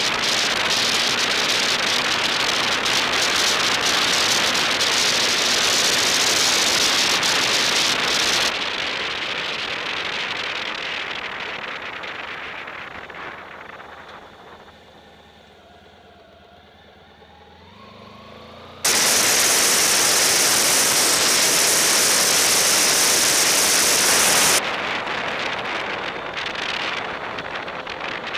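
Wind rushing over a bike-mounted camera's microphone while riding. The rush fades to a quiet lull as the bike slows to a stop at an intersection, with a faint tone rising at the end of the lull, then comes back abruptly loud about two-thirds of the way through.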